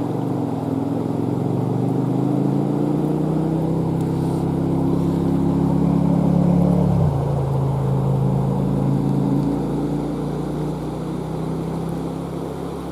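A passing engine: a steady motor drone that grows louder, drops in pitch about seven seconds in as it goes by, then fades, over the steady rush of river water.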